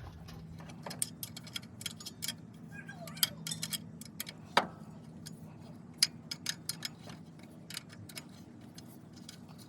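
Hand ratchet wrench clicking in short runs, with light metal clinks, as a bolt on the engine's accessory drive is loosened to slacken the belt. One louder knock comes about halfway through.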